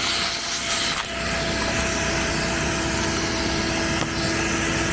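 A motor running steadily with a constant hum over a rushing hiss.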